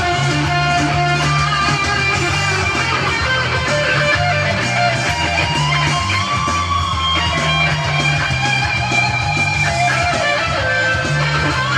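Electric guitar, the Gretsch G2622T Streamliner centre-block semi-hollow, playing a lead line with a bent note over a repeating bass backing.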